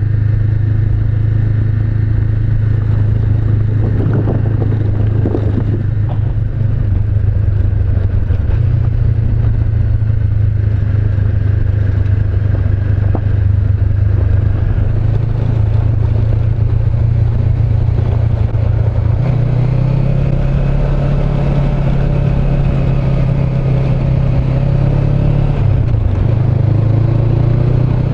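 Honda CB500X motorcycle's parallel-twin engine running under way, with wind and road noise. Its pitch steps up about eight seconds in and again about nineteen seconds in, with a brief dip near the end.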